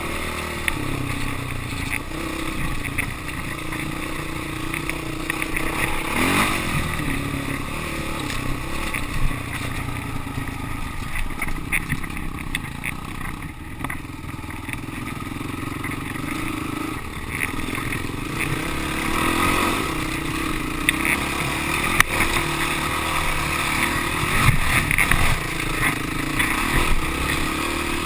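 Dirt bike engine running under load on a steep trail climb, its note rising and falling with the throttle, with scattered short knocks and clatter from the bike over the rough ground.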